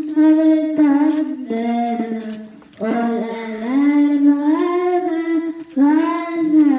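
A girl singing a slow melody into a microphone, in several phrases with long held notes.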